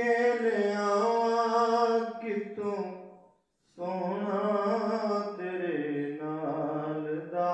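A man reciting a naat, a devotional poem in praise of the Prophet, sung unaccompanied in long held melodic phrases. The voice breaks off briefly about three and a half seconds in, then picks up the next line.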